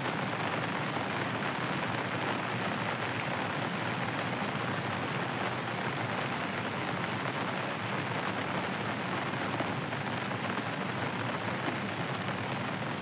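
Steady hiss of rain falling on water and the surroundings, even and unbroken, with no distinct drops or knocks.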